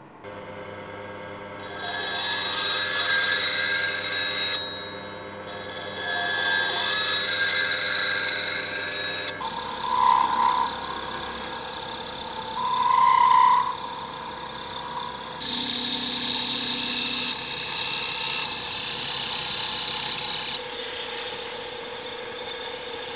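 Schulte Midi Pro wood lathe running with a steady motor whine while a turning tool cuts the spinning wooden workpiece, the cutting coming in short spells. The sound changes abruptly several times.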